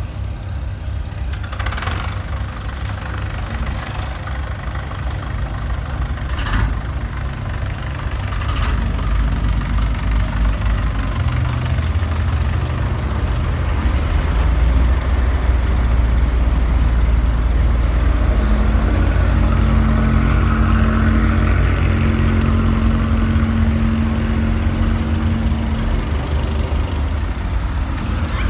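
A bottom-trawl fishing boat's diesel engine running as the boat leaves harbour, a steady low rumble that grows louder over several seconds and then holds. A few short knocks come early.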